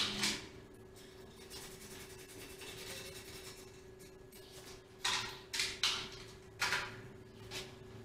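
Hand tools at work on a moped: a sharp clack as a tool is taken from a metal socket-set case, then four short rasping strokes of a hand tool on the bike's rear and exhaust fittings a little over halfway through.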